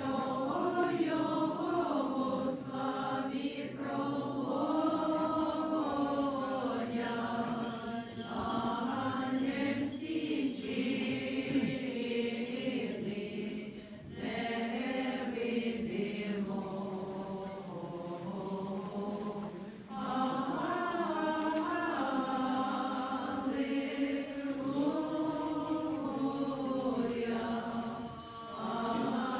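A group of voices singing Orthodox liturgical chant, unaccompanied, in long sustained phrases with brief pauses for breath between them.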